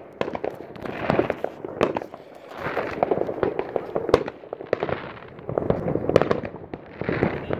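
Aerial fireworks bursting overhead: a dense run of sharp bangs and crackling, swelling in waves every second or two as burst follows burst.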